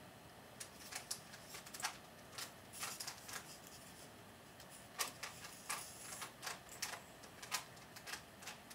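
Scattered light clicks and taps, irregular and unevenly spaced, from hands handling a small wooden model trebuchet and its string.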